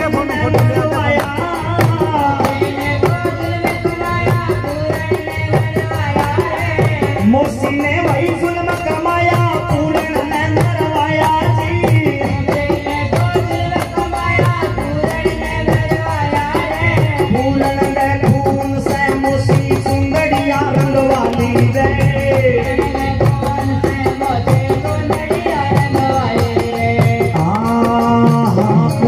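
Live Rajasthani devotional bhajan: a man singing through a microphone over a hand drum, keyboard or harmonium, and rattling, clashing handheld percussion, with a steady beat throughout.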